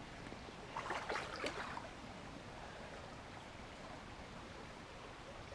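Mountain stream flowing steadily over rocks, a constant rushing; about a second in, a short louder burst of splashing or knocking stands out over it.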